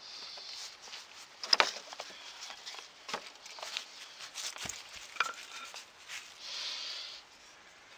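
Handling noise as a wooden loom pole is set up against iron stakes: several sharp knocks and clicks, the loudest about a second and a half in, one duller thud near the middle, with soft rustling at the start and near the end.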